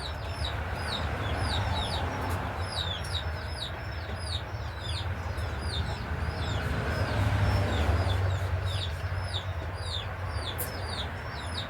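Birds chirping: many short, high, falling chirps, several a second, over a steady low background hum.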